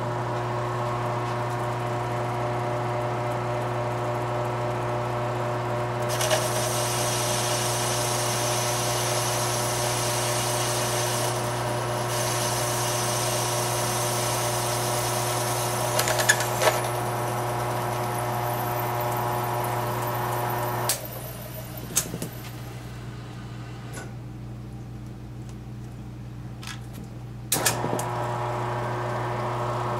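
Micro lathe running with a steady motor hum while a parting tool cuts into a spinning brass rifle cartridge case, adding a high hissing cutting noise for about ten seconds. A few sharp clicks follow, and the hum drops for several seconds near the end before it comes back.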